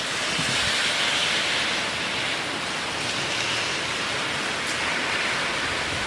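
Heavy typhoon rain falling steadily as a continuous, even hiss.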